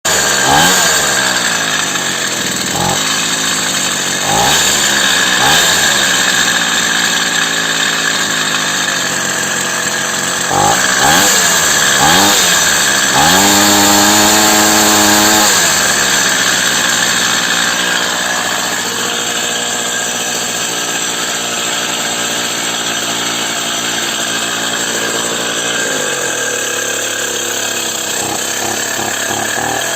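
Karpaty moped's small two-stroke engine running and being revved in repeated short blips, held at high revs for about two seconds in the middle, then running steadily at lower speed before a few more blips near the end.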